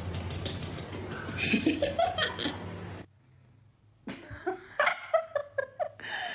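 People laughing and chuckling across two clips, with a cut about three seconds in; a steady low hum runs under the first clip.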